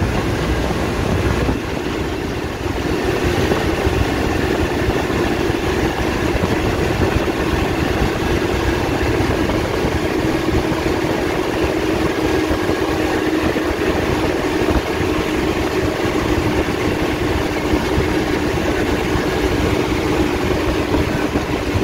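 Swaraj 855 tractor's three-cylinder diesel engine running steadily under way, a constant loud drone with a held engine tone.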